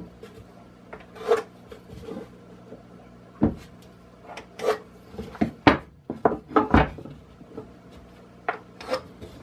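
Pencil and square scraping on 2x4 lumber as lines are marked, with several sharp wooden knocks as the square and boards are moved.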